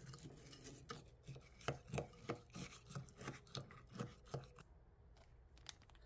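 Wooden spoon stirring crunchy granola into yogurt in a glass cup: a run of short clinks and crunchy scrapes about three a second, fading out near the end.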